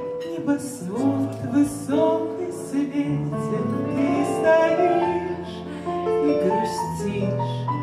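A small live band (grand piano, bayan, clarinet, acoustic guitar, bass and drums) playing an instrumental passage of a song, with several sustained and moving melody lines over a steady bass and cymbal beat.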